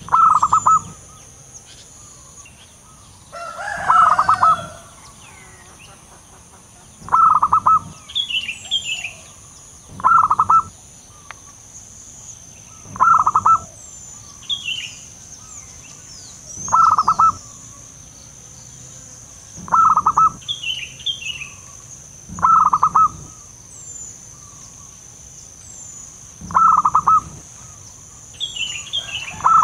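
Zebra dove (perkutut) giving its rapid staccato cooing song in short phrases, about one every three seconds, ten times over. Small birds chirp faintly between the phrases over a steady high whine.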